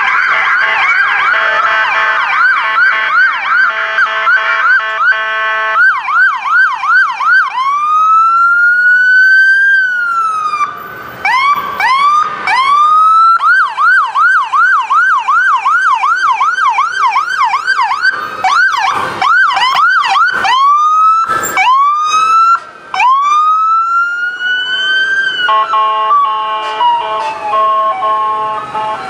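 Electronic sirens of several emergency vehicles in a passing procession, overlapping at times. They switch between a slow rising-and-falling wail and a fast yelp of about three sweeps a second. Near the end a steady multi-tone horn sounds in broken blasts.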